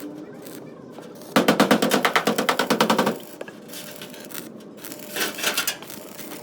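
A pneumatic air tool hammering in a rapid rattle of strikes, about fourteen a second, for nearly two seconds, then stopping. A brief scraping follows near the end.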